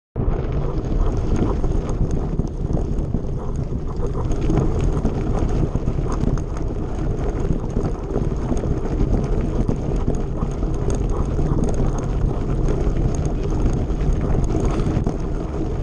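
Mountain bike rolling along a loose gravel track: a steady rumble of tyres on stones, with constant small rattles and clicks from the bike and wind buffeting the microphone.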